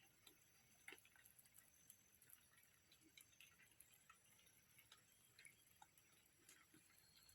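Near silence: a low hiss with faint, scattered short ticks and clicks.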